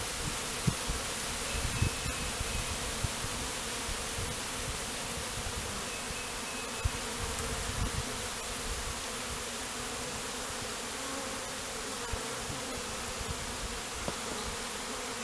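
Steady buzzing of a honeybee swarm in the air around an opened bait hive while its comb is being handled, with a few soft low bumps.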